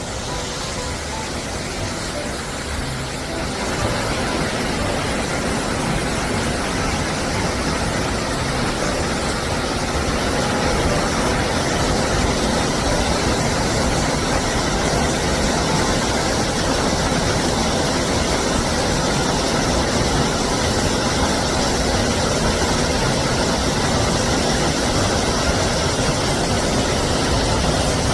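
Waterfall pouring down a rock gorge: a steady rushing of falling water, growing louder about four seconds in and again around ten seconds in.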